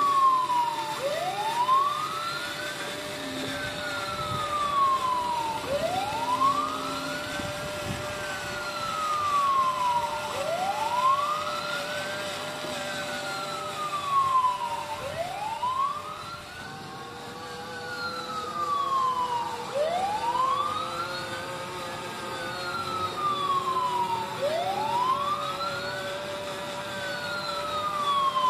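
Electronic fire-truck siren from the Huina 1561 RC fire truck's built-in sound module. Its wail rises for about two seconds, falls for about two and a half, then drops and starts again, repeating about every five seconds.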